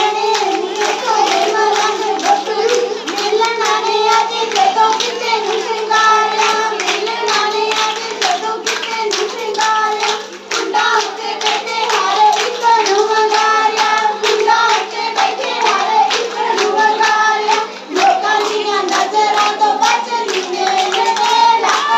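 Group of girls singing a Punjabi giddha folk song together, with steady rhythmic hand clapping keeping the beat.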